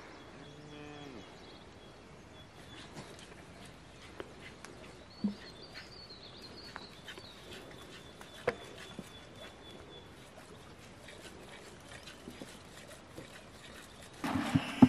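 Cattle lowing once, briefly and low, over faint high bird whistles and a few light knocks. Just before the end a much louder rushing noise starts.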